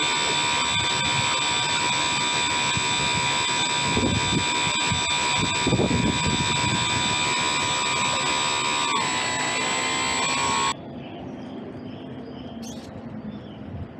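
RC model boat's small outboard motor running with a steady high whine. Its pitch drops a little near the end, then it cuts off suddenly, leaving only quiet water and background hiss.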